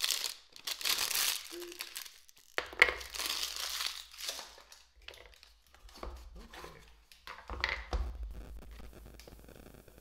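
Clear plastic wrapper crinkling in irregular bursts as a plastic paint palette is unwrapped, dying down near the end.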